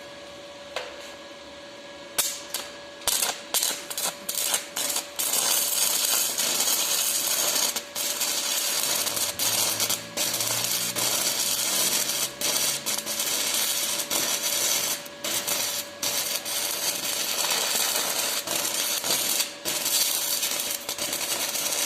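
Shielded metal arc (stick) welding with a 6010 electrode on a root pass: about two seconds in, the arc is struck with several short sputters, then it settles into a steady loud crackle with brief dropouts as the rod is whipped forward and back. A faint steady hum sits underneath.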